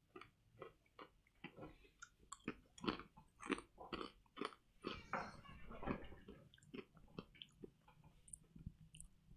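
Quiet crunching and chewing of a crisp, thin ginger-flavoured fortune cookie: a run of short, irregular crackly bites, busiest in the middle and thinning out near the end.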